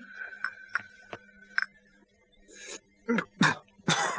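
A few light clinks, then a man taking short, noisy slurping sips from a porcelain teacup, the loudest about three and a half seconds in.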